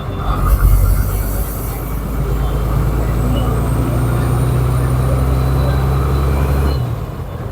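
Bus engine running steadily under load, a loud low drone with road and body noise, which drops off suddenly about seven seconds in.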